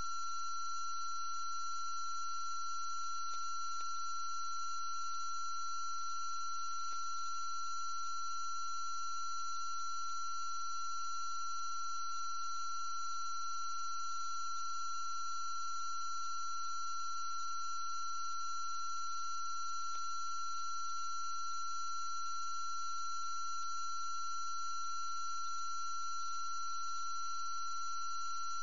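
A steady, unchanging high-pitched electronic tone with a faint hiss under it.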